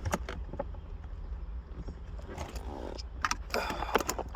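Scattered clicks and short rattles of small plastic trim parts and hand tools being handled while a car's gear shifter assembly is taken apart. They come closer together about three seconds in.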